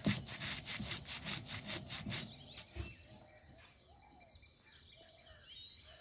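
Stone roller rubbed back and forth on a flat grinding stone, crushing spices with quick rasping strokes, about four to five a second. The strokes stop after about two seconds.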